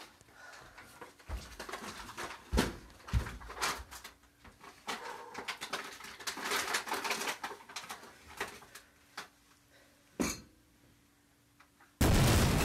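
Crinkling and rustling of a plastic snack bag being carried and handled, with scattered clicks and knocks. Near the end a sudden loud blast like an explosion cuts in.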